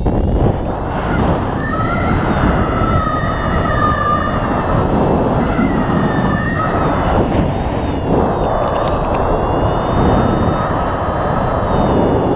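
Airflow rushing over the camera microphone of a paraglider in flight, a loud steady rush. A wavering high tone runs over it from about one and a half to seven seconds in.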